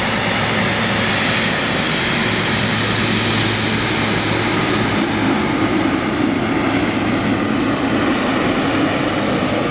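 Boeing 777 jet engines running steadily at low taxi power as the airliner rolls past at close range.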